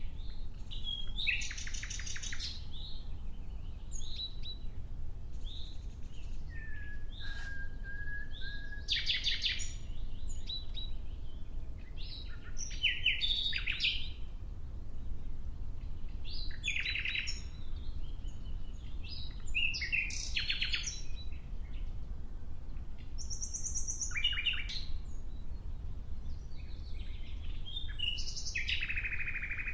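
Nightingale singing in separate phrases every few seconds, mostly rapid rattling trills and clicking notes, with one long level whistle about a quarter of the way in. A low steady rumble runs underneath.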